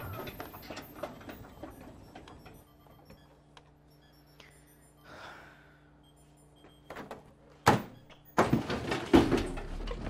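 A microwave oven's door and a stuffed toy being handled: soft clicks and rustling, then a sharp clack about three-quarters of the way in, followed by a second or so of louder clattering.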